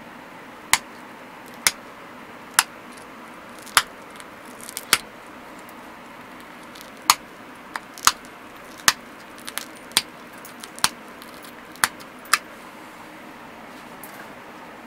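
Obsidian being pressure-flaked: a dozen or so sharp clicks at irregular intervals, roughly one a second with a short gap in the middle, as flakes snap off the edge under a hand-held pressure flaker.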